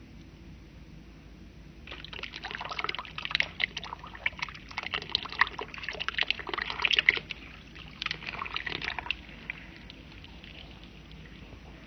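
Water poured from a clear plastic container onto soil in a plastic tub, splashing and trickling with many small crackles. It starts about two seconds in and stops about seven seconds later.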